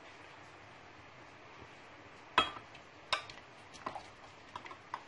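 A dish clinking against the rim of a glass blender jar as cubed mango is tipped and scraped into it: one sharp clink about halfway through, then a run of lighter clinks and taps.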